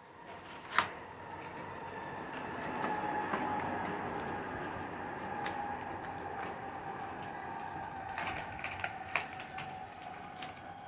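Plastic bag and cardboard packaging rustling and crinkling as a boxed computer keyboard is unpacked, with a sharp click about a second in and a few smaller clicks near the end. A faint steady tone runs underneath.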